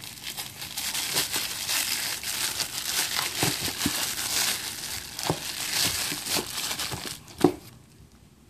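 Plastic film and bubble wrap crinkling and crackling as they are pulled off an air impact wrench, with one sharp knock about seven seconds in.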